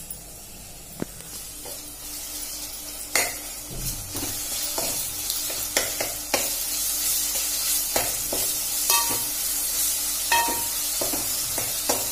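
Onions, green chillies and ginger-garlic paste sizzling in hot oil in an aluminium pressure cooker while a steel spoon stirs, clinking and scraping against the pot every second or two. The sizzle grows louder about four seconds in.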